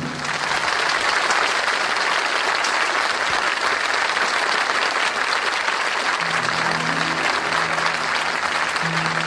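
Audience applauding. About six seconds in, music comes in under the applause with soft held low notes.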